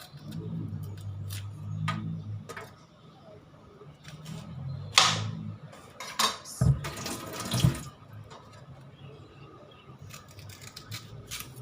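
Kitchen food-prep sounds as fresh pears are cut into small pieces: scattered knife clicks and knocks on a cutting board, and a second-long rush of running tap water about seven seconds in.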